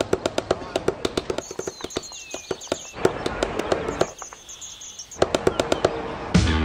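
Rapid sharp crackling clicks, several a second, with bird chirps high above them, thinning out twice. Music with plucked strings starts just before the end.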